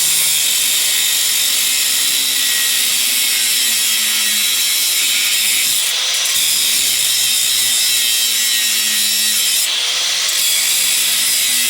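Small angle grinder with a cutting wheel, cutting through a steel backhoe bucket shank: a loud, steady grinding whine, its sound shifting briefly about six seconds in and again near ten seconds as the wheel's load changes.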